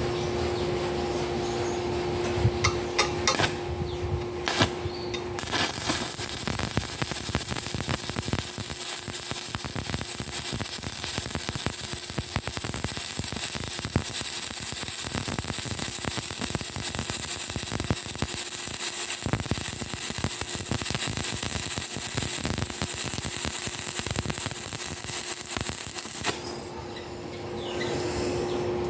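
Stick-welding arc burning an E6013 electrode: a steady, dense crackle that starts about five seconds in and cuts off a few seconds before the end. Before it, a steady hum and a few sharp taps.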